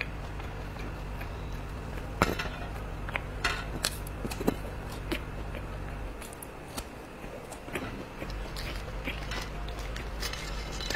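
Close-miked eating sounds as raw wumi shoots, smut-infected with a soft white core, are bitten and chewed, with scattered crisp clicks. Near the end come light knocks as the green stalks are handled on a plate.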